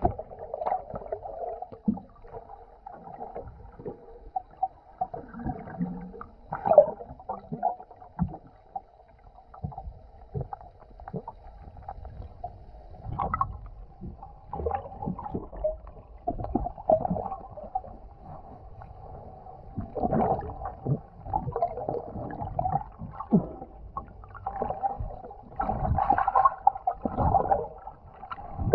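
Muffled underwater sound through an action camera's housing: gurgling water with irregular soft knocks and swishes as a swimmer moves beneath a sailboat's hull, busier in a few stretches toward the end.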